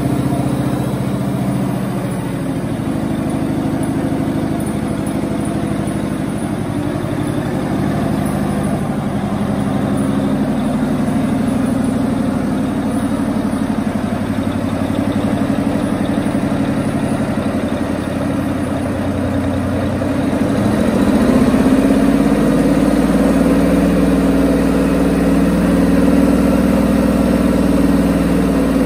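Detroit Diesel 12V149 turbocharged two-stroke V12 marine diesel running steadily on a test stand; about two-thirds of the way through its note changes and it gets a little louder as its speed changes.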